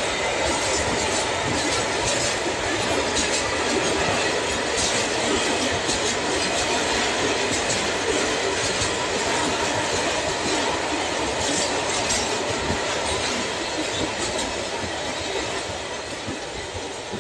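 Container freight train rolling past close by: the steady rolling noise of steel wheels on rail, with repeated clicks as the wagons' wheels cross rail joints. It eases off slightly near the end.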